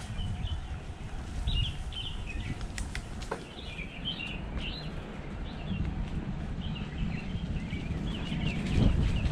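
Low rumble of wind and tyres as an electric mountain bike rolls along a dirt track, with a few sharp clicks from the bike, while birds chirp again and again throughout. The rumble grows louder near the end.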